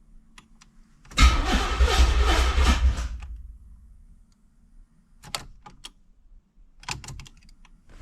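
Third-gen Camaro engine cranking on the starter for about two seconds without catching, because the fuel pump is delivering no fuel pressure. A few light clicks follow.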